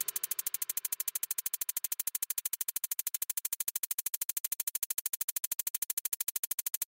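Quiet background electronic music: a fast, even synth pulse of about a dozen beats a second.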